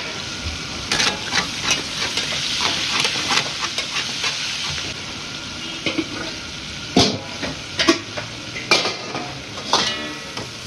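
Mutton pieces sizzling in hot oil in a metal karahi, with a metal spatula scraping and knocking against the pan. The sizzle is strongest in the first few seconds, and sharper, louder knocks come in the last few.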